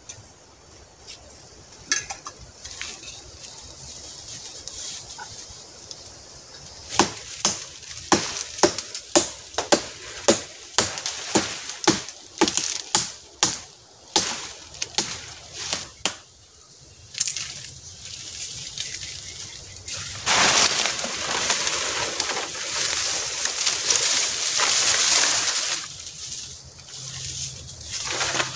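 Crunching and rustling in dry leaf litter: a run of sharp crunches about two a second, then several seconds of steady rustling near the end.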